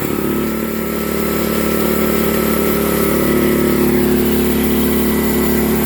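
18 horsepower Duramax gasoline engine on a bandsaw sawmill running steadily with the throttle opened up.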